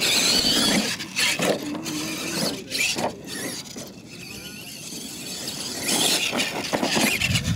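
An R/C monster truck's motor whines in bursts with the throttle as it drives off over dirt, tyres scrabbling and throwing dirt. It is loud at first, quieter in the middle as it moves away, and loud again near the end.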